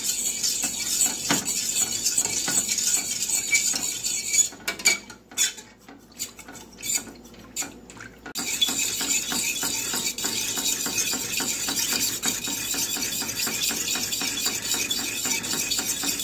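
A metal fork stirring liquid in a stainless steel saucepan, scraping and clinking quickly against the pan's sides and bottom while gelatin mix dissolves in water brought toward a boil. The stirring stops for a few seconds near the middle, leaving only a few taps, then starts again.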